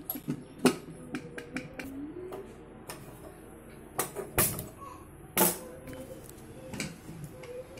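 Sharp clicks and knocks, several in a row, from a handheld spark gas lighter being clicked at a gas stove burner to light it, with the loudest clicks about four and five and a half seconds in; smaller knocks earlier come from handling the pressure cooker.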